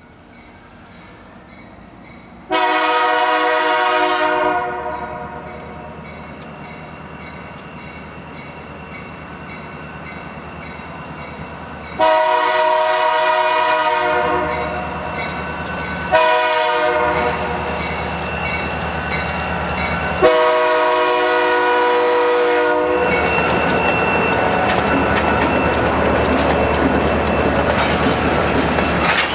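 Locomotive air horn sounding a chord of several tones in the grade-crossing pattern, long, long, short, long, as a freight train approaches. After the last blast, the locomotive passes close by with engine rumble and wheels clattering over rail joints.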